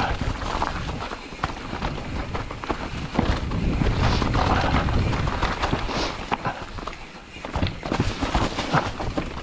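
Mountain bike rolling over a leaf-covered, stony singletrack: tyres crackling through dry leaves, with many sharp knocks and rattles as the bike goes over loose stones.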